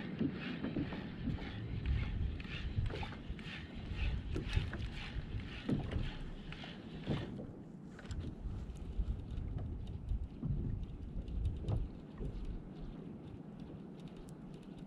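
Water lapping against a plastic kayak hull, with wind buffeting the microphone. A run of light ticks and knocks about twice a second fills the first half, then stops.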